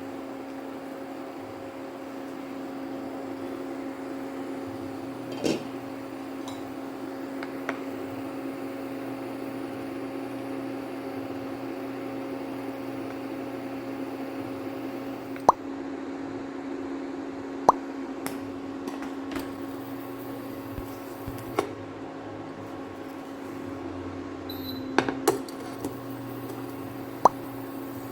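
A steady machine hum, with a few sharp clicks and clinks scattered over it, several of them in the second half.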